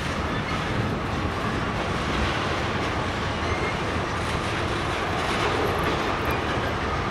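Freight train of tank cars and lumber-loaded centerbeam flatcars rolling past at a steady pace: a continuous rumble of steel wheels on rail.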